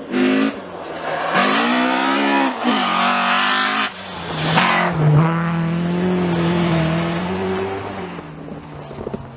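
Rally car's engine on a snow stage: a short throttle burst, then the revs rising and falling twice through the bend, loudest as the car passes, then a steady note fading away.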